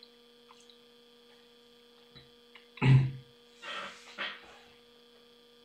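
A man makes one short voiced sound about three seconds in, then breathes out heavily twice, like a sigh, over a steady electrical hum.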